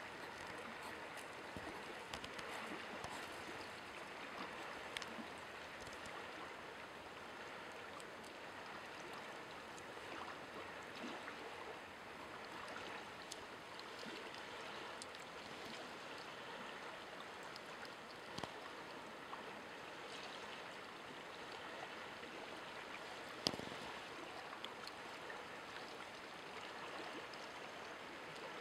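Steady, even rushing background noise, with a few faint ticks and one sharper click about 23 seconds in.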